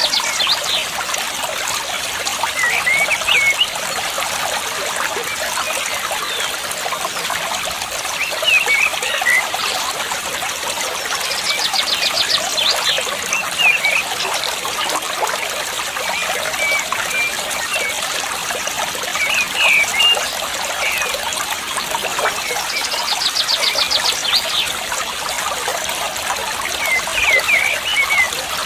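Water trickling steadily, with a bird giving short chirping calls every few seconds. A rapid buzzy trill comes twice.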